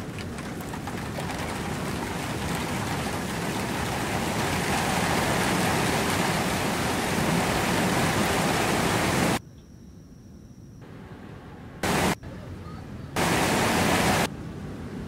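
Excerpt of a sound-art piece built from field recordings: a dense rushing noise that swells gradually, then cuts off abruptly about nine seconds in to a much quieter hiss with a faint steady high tone, followed by two short bursts of the same loud noise, the second about a second long.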